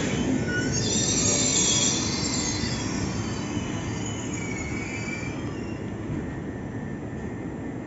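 Steel wheels of an Italo high-speed train squealing on the rails as it moves slowly along the platform, over a low rumble. The squeal is several high tones, loudest in the first few seconds, and fades after about five seconds.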